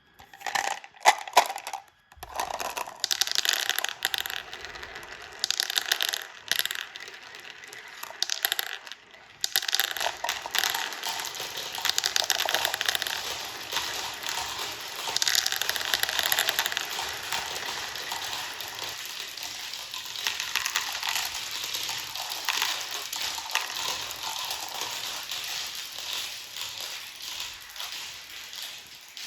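A batch of about fifteen marbles rolling and clattering together down a marble run, making a dense rattle of many small clicks. It breaks off briefly about two seconds in, then carries on.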